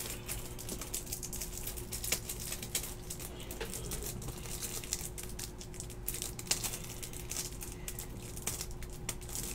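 Faint crinkling and scattered small clicks of a plastic-wrapped pack of card top loaders being worked open, over a faint steady hum.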